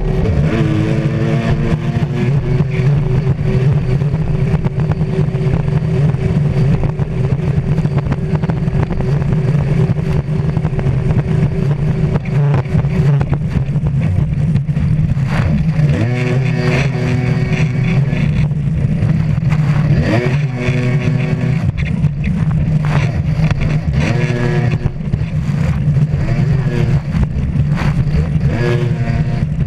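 Racing stand-up jet ski engine running hard under full load, heard from a camera mounted on the craft, its pitch climbing again and again as the rider powers out of turns, over a constant rush of water and wind.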